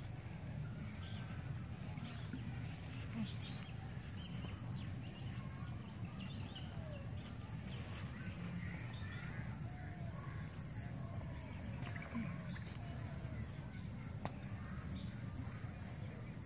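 Birds chirping and calling here and there, short scattered calls over a steady low hum, with a faint steady high-pitched tone.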